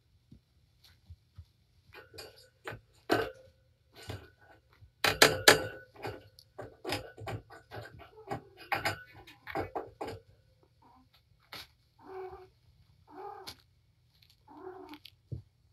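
Cats playing: a quick run of paw scuffles, knocks and thumps on the floor and pee pads, loudest about five seconds in, then a cat gives three short meows near the end.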